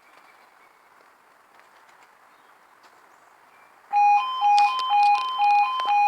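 Faint background, then about four seconds in a level crossing's warning alarm starts suddenly: a loud two-tone warble, alternating high and low about twice a second, as the crossing begins to close for an approaching train.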